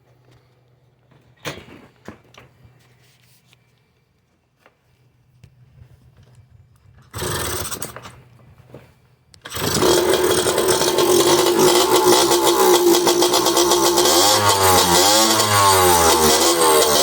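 Jianshe Coyote 80 dirt bike's two-stroke engine started after a carburetor replacement, its mixture screws at a first baseline setting: a short noisy burst about seven seconds in, then the engine catches a little over halfway through and runs loudly, with the throttle blipped up and down in the last few seconds.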